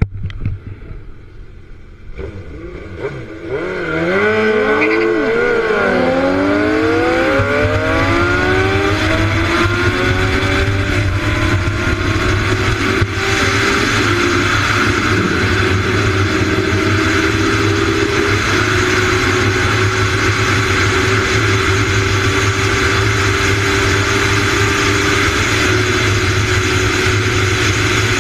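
Yamaha R1 sport bike's inline-four engine accelerating hard from a few seconds in, its pitch climbing and dropping back with each quick upshift, then held steady at high speed. Heavy wind rush on the microphone.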